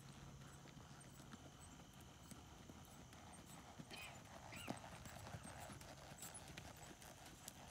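Faint, muffled hoofbeats of a horse moving over arena sand.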